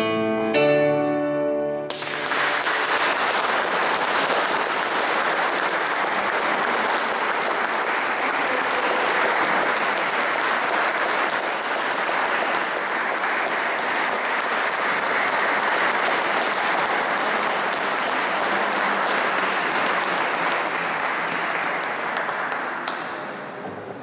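The music ends with held notes on a Korg digital piano about two seconds in, followed by sustained applause from the congregation that tapers off near the end.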